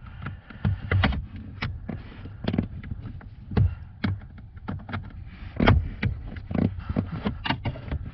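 Screwdriver prying along the hot-knife-cut seam of a 2010 Camaro's plastic heater box, with irregular clicks and snaps as bits of re-melted plastic break loose.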